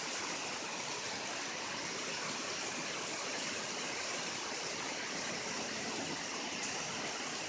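Heavy rain pouring down in a steady hiss, with no thunder or break in it.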